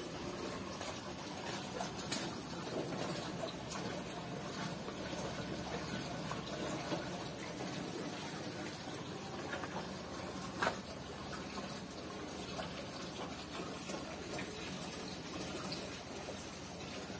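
Steady trickling and splashing of running water, with a couple of short knocks, the clearest about ten seconds in.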